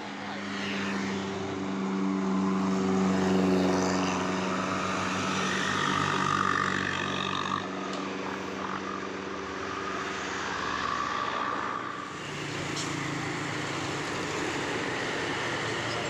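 Tour buses' diesel engines droning under load as they climb past, a steady low hum that swells in the first few seconds, with a change near 12 s as another bus and traffic come up.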